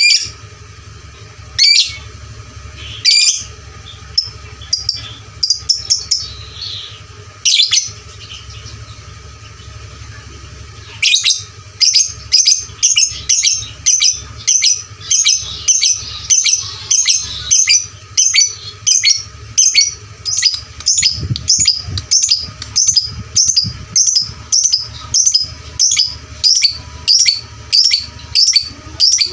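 Fighter lovebird calling with loud, sharp, high chirps: a few spaced calls at first, then from about a third of the way in a steady run of about two chirps a second.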